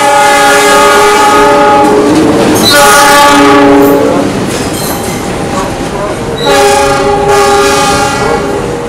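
Diesel locomotive horn sounding three blasts of a multi-note chord, about two seconds, a second and a half, and two seconds long, the second starting about three seconds in and the third about six and a half seconds in. Under them runs the heavy rumble and wheel clatter of container flatcars passing close by.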